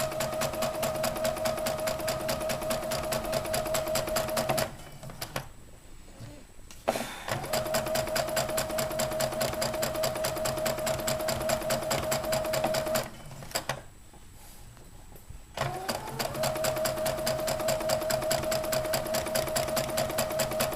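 Electric sewing machine sewing a straight-stitch seam: a steady motor whine under rapid, even needle clatter. It stops twice, about five seconds in and again near thirteen seconds, for a couple of seconds each time, then starts up again.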